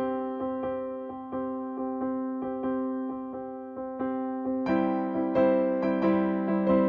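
Background music: gentle electric piano playing sustained chords with notes struck in a steady rhythm, growing fuller and louder near the end.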